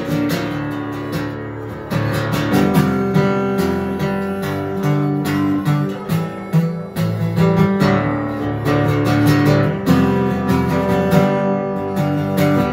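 Acoustic guitar strummed solo in a steady rhythm: an instrumental break between sung verses.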